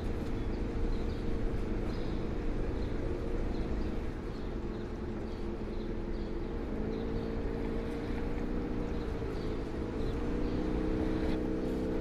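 Steady drone of a river ferry's engine, a low hum with several even tones that grows clearer about seven seconds in.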